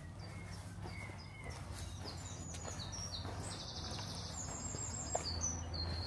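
Small songbirds chirping with quick, high-pitched notes that grow busier from about two seconds in, including a fast trill, over a steady low hum.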